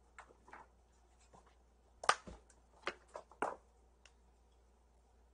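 Scattered short knocks and clicks of kittens playing and running about, the loudest a thump about two seconds in, followed by three quicker knocks.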